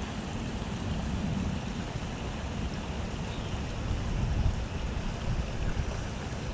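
Wind blowing hard over the microphone: a low, uneven gusting noise with a steady hiss above it, a little stronger about four seconds in.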